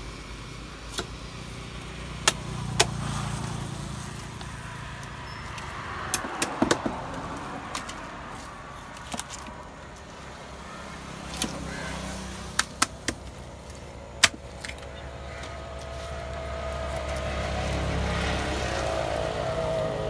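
Large curved fish knife striking a wooden log chopping block as a tilapia is scaled and cut: about a dozen sharp knocks at irregular intervals, some in quick runs of two to four.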